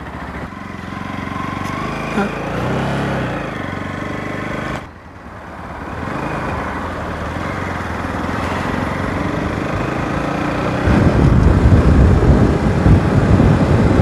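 Motorcycle engine pulling away and accelerating, its note climbing, with a brief dip about five seconds in at a gear change before it builds again. From about eleven seconds in, loud wind rush on the microphone at road speed covers it.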